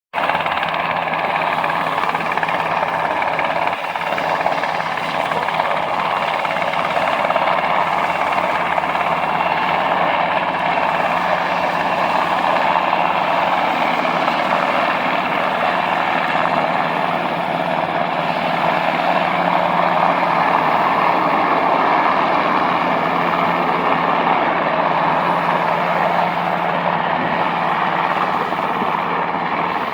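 Helicopter in flight, a steady, loud drone of rotor and engine noise that holds level.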